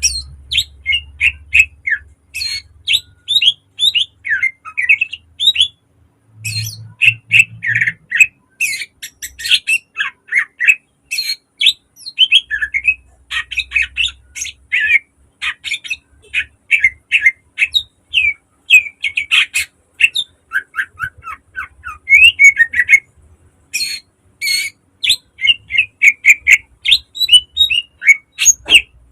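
A cucak ijo (green leafbird) singing a fast, nearly unbroken stream of sharp chirps and squawky notes, with a short pause about six seconds in.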